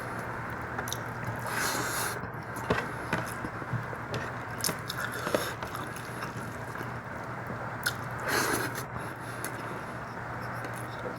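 Chewing and wet mouth sounds of someone eating mutton curry and rice, with irregular smacks and clicks and a couple of short squelching swells.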